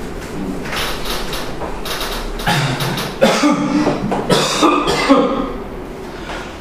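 Marker strokes scratching on a whiteboard, then about two and a half seconds in a man's wordless voice sounds for a few seconds, coughing or clearing his throat.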